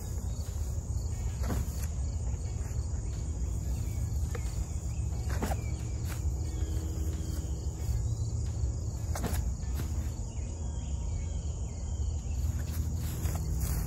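Steady high chirring of insects in a summer field over a low outdoor rumble, with three short sounds about four seconds apart.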